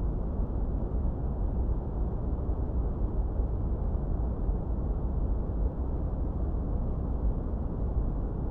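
Steady synthetic masking noise, deep in tone: most of it sits in the bass and it fades out above about 2 kHz, in the manner of brown noise rather than flat white noise. It is even throughout, with no change.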